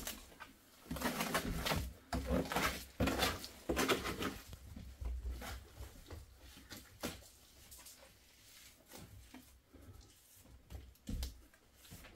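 Wet mud being scraped up and pressed and smeared by hand onto a mud-plastered stove chimney. There is a run of louder scraping about a second in, lasting until about four seconds in, then lighter scattered taps and scrapes.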